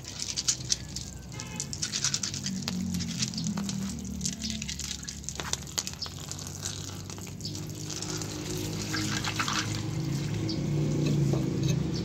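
Water running and splashing on wet paving as an axle shaft's flange and bolts are rinsed by hand, with small metal clicks as the bolts are handled. A low hum sits underneath, strongest near the end.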